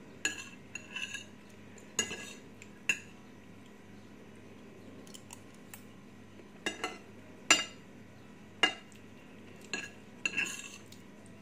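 Metal spoon clinking and scraping against a glass plate as rice is scooped up: irregular sharp clinks with a short ring, a quiet stretch in the middle, then more clinks near the end.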